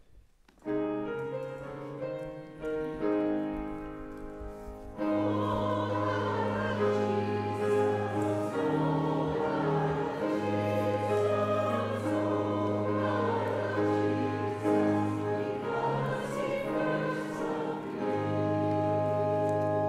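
Closing church music starts after the benediction: held chords, swelling about five seconds in to a fuller, louder sound with a deep bass line.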